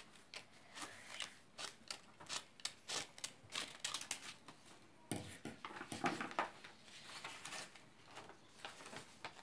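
Scissors snipping through a sheet of plain white paper in a quick, irregular run of short cuts, with the paper rustling as it is handled, loudest about halfway through.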